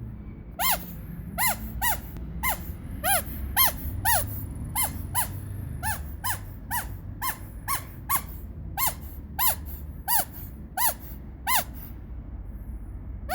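Rubber squeaky toy squeezed over and over, about two squeaks a second. Each squeak is a short, high-pitched squeal that rises and falls in pitch.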